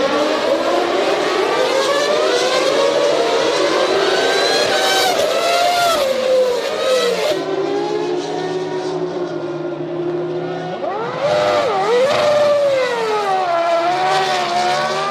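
Formula One cars' V10 engines at high revs, their pitch climbing and dropping through gear changes. About halfway through the pitch settles into a steadier, lower tone for a few seconds, then the revs climb sharply again with a quick dip and rise.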